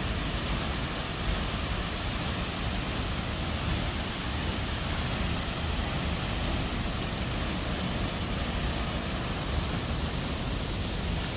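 Steady rushing noise of a waterfall, even and unbroken throughout.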